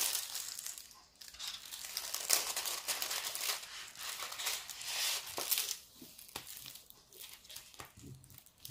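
Clear plastic protective film on a diamond painting canvas crinkling as it is handled and smoothed by hand, densest in the first half and dropping to light rubbing and small ticks for the last few seconds.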